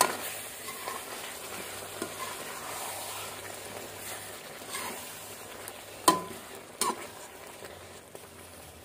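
Chicken in a thick onion-and-spice masala sizzling in a pan as it is fried, stirred with a metal spatula. The spatula clicks and clinks against the pan at the start and twice about six and seven seconds in.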